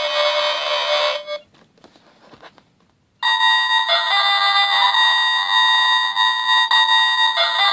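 Electronic sound chip of a Power Rangers Dragon Dagger toy playing a flute-like tune through its small speaker. One tune cuts off about a second in; after a short pause with a few faint clicks, another tune starts about three seconds in and keeps going, restarting near the end.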